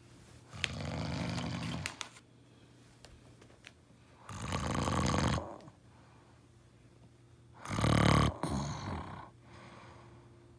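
Snoring: three loud snores about three and a half seconds apart, each lasting a second or so.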